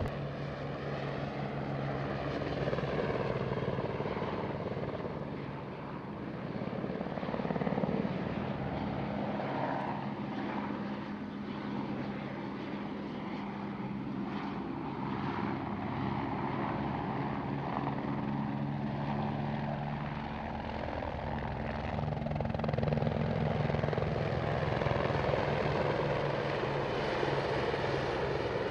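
Two Eurocopter AS350 Squirrel helicopters flying in close formation: a continuous turbine and rotor drone whose pitch shifts as they manoeuvre and pass, swelling louder near the end.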